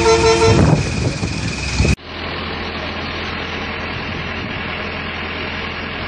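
Multi-tone 'telolet' horn on a police truck sounding its chord tune, which stops about half a second in, leaving engine rumble. After a sudden cut at about two seconds, a steady engine hum of an idling bus.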